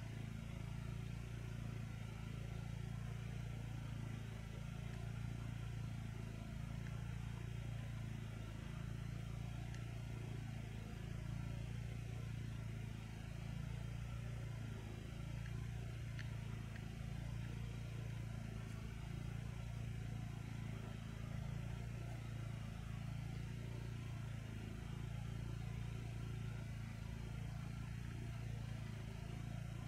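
A steady low mechanical drone, like an engine running at a constant speed, unchanging in pitch and level.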